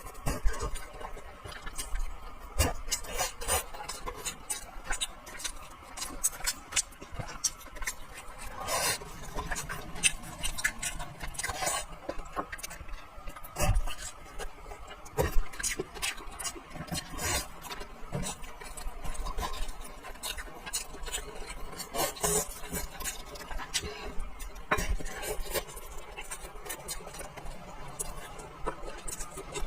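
A person eating braised fish, with close-up chewing and mouth sounds and many small irregular clicks and taps.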